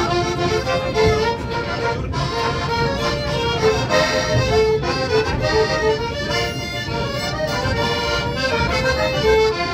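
Accordion playing a tune, a melody of quick short notes over a held lower part.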